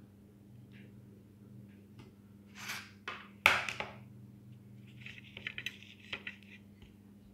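Kitchen handling noises around a baking tray lined with baking paper: two brief brushing swishes, then a sharp knock about halfway through, then a second or so of fine crinkling, over a low steady hum.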